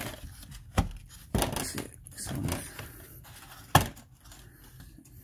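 A few sharp clicks and knocks of plastic bumper trim being handled and pried at by hand, the loudest about three-quarters of the way through, with quieter rubbing and rattling between.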